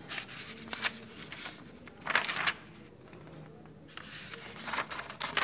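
Paper pages of a textbook being turned by hand: papery rustles and flicks near the start, a louder one about two seconds in, and more from about four seconds on.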